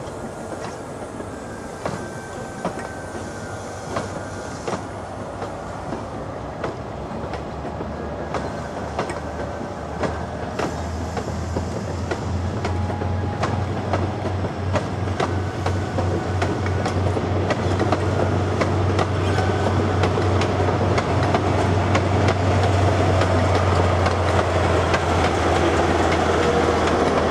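InterCity 125 (Class 43 HST) coaches rolling past at low speed, their wheels clicking over rail joints. From about halfway through, the low drone of the trailing Class 43 power car's diesel engine grows steadily louder as it draws near.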